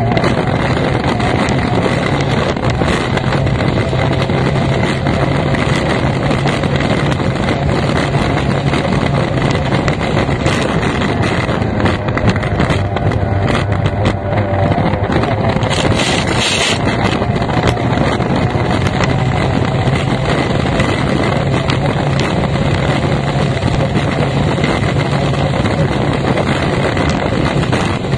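An F1 racing powerboat's outboard engine runs hard at speed, with wind buffeting the microphone. About halfway through, the engine note drops briefly, as when the throttle comes off for a turn, then climbs again.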